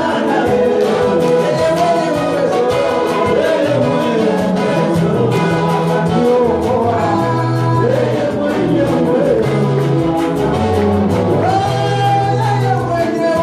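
Gospel song: singing voices over a band with a bass line and a steady beat.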